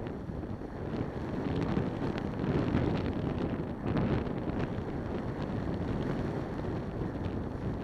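Wind buffeting the microphone of a helmet-mounted camera on a moving motorcycle, rising and falling in gusts, with the bike's engine and tyre noise running underneath.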